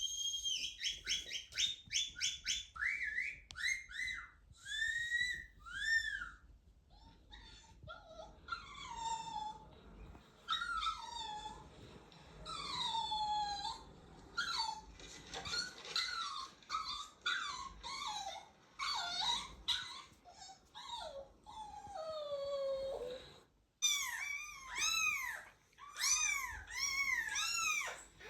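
A long series of high-pitched, dog-like whining and whimpering calls with sliding pitch. Near the end they settle into a run of rising-and-falling squeals, about two a second.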